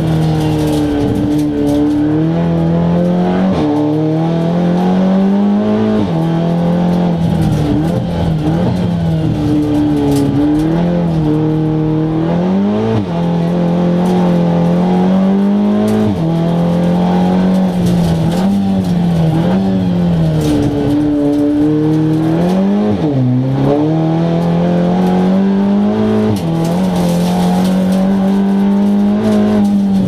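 Seat Leon Cup race car's turbocharged 2.0-litre four-cylinder engine heard from inside the cabin under hard driving. The revs climb steadily and drop sharply at each gear change, and dip lower a few times as the car brakes and downshifts for corners before pulling away again.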